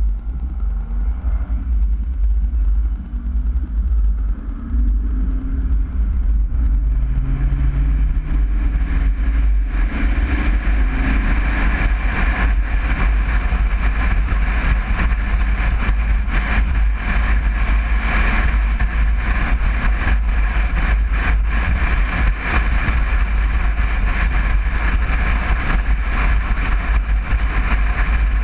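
Vintage VW Bus with its air-cooled flat-four engine under way: the engine pitch rises through the first several seconds as it accelerates, then settles into steady cruising with road and wind noise over a heavy low rumble.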